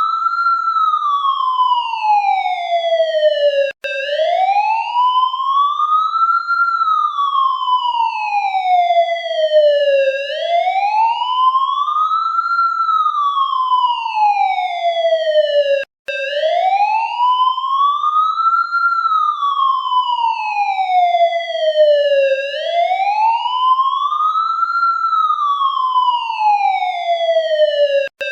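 Police siren in wail mode, its pitch rising and falling slowly, one full rise and fall about every six seconds. The sound cuts out for an instant three times.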